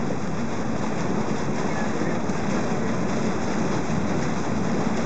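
A small boat under way, giving a steady drone of engine and water rushing past the hull.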